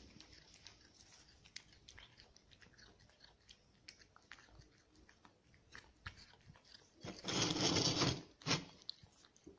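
A cat eating from a plate close to the microphone: a run of quick, soft chewing and licking clicks. About seven seconds in there is a louder noisy stretch of about a second, then a short one just after.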